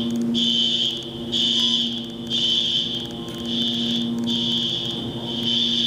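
Building fire alarm horn sounding in even, high-pitched pulses, about one a second, over a steady low hum.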